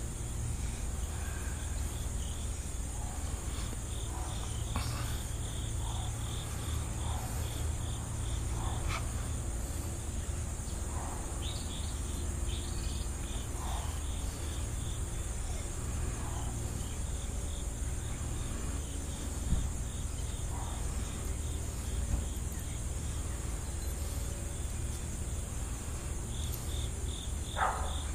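Crickets chirping in a steady, rapidly pulsing chorus over a constant high insect drone. A couple of short, sharp sounds stand out near the end.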